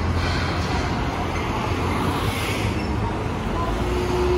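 Hiroden 'Green Liner' tram rolling slowly past close by over street traffic noise; a steady hum comes in near the end.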